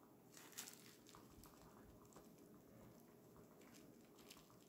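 Faint scratching of a coloured pencil point working into a layer of oil pastel on paper, a few short strokes over quiet room hiss.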